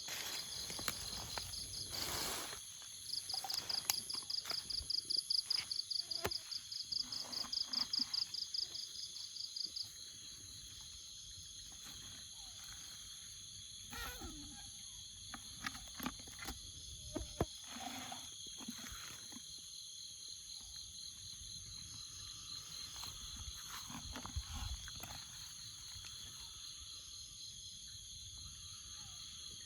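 Jungle insect chorus: several insects buzzing steadily at high pitch, with a loud pulsing insect call through roughly the first ten seconds. Scattered short rustles and knocks sound over it.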